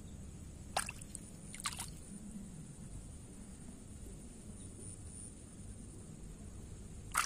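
Small splashes and drips of water as a hand moves through shallow water: brief sharp sounds about a second in, again shortly after, and once near the end, over a faint low rumble.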